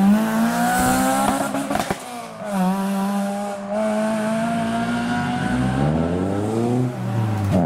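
Sixth-generation Honda Civic hatchback accelerating hard, its engine revving up high. The pitch drops at an upshift about two and a half seconds in, then climbs again to another shift near the end.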